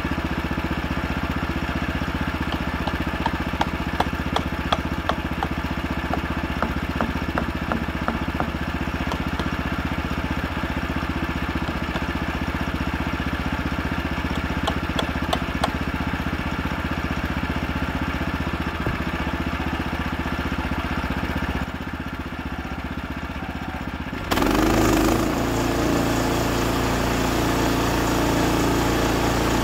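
Woodland Mills HM126 sawmill's 14 hp gas engine running steadily at idle, with a series of sharp taps from wedges being hammered in behind the slab. About 24 seconds in, the engine note changes and gets louder.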